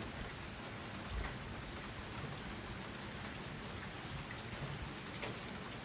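Steady rainfall with scattered faint drops landing close by.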